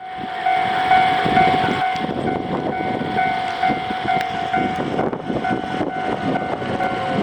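Tobu Spacia limited express train moving slowly across a level crossing, a dense rumble with scattered clicks. A steady ringing tone sits over it and breaks briefly about five seconds in.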